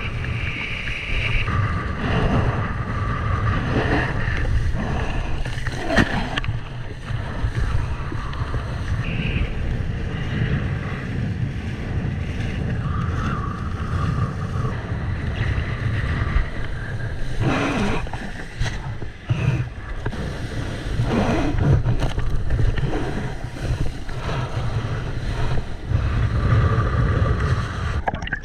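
Wind buffeting the microphone over rushing, splashing water from a kiteboard riding across the sea, with a constant low rumble and scattered splashes.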